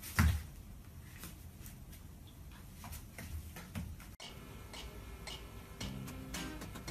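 A thump, then scattered light taps and clicks as a Shiba Inu scuffles and tugs at a person's sock on a foam floor mat. About four seconds in, the sound cuts off and soft guitar music begins.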